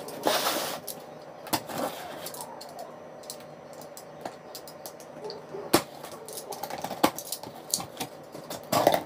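Box cutter scraping through packing tape on a cardboard shipping box, then the cardboard flaps being pulled open. Rustling and scraping with scattered sharp clicks, and a louder scrape near the start and again near the end.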